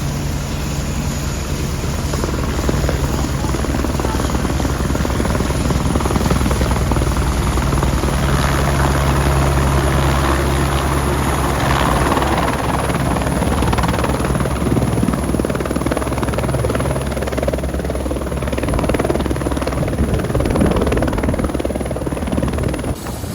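Tour helicopter running steadily and loudly close by, a dense low rotor-and-engine rumble with a thin high whine over it.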